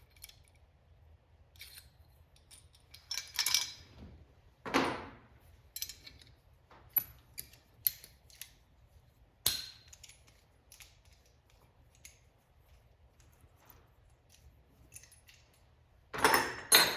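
Brake-line flaring tool and copper tube being worked by hand: scattered small metallic clicks and ticks, with a few louder metal clatters, about three and a half seconds in, about five seconds in, and near the end.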